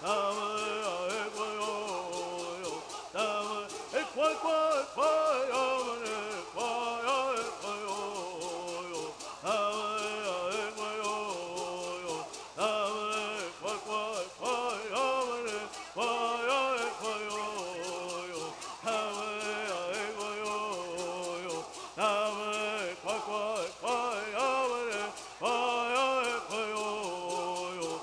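Southern California bird singing: a group of men singing together in unison, keeping a steady beat by shaking hand rattles throughout.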